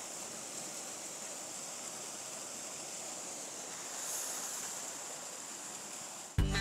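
Creek water running steadily, a little louder about four seconds in. Background music cuts back in at the very end.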